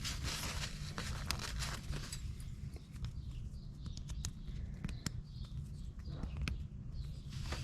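Scattered light clicks and knocks as the drive chain of a 125cc ATV is checked by hand, over a low steady rumble.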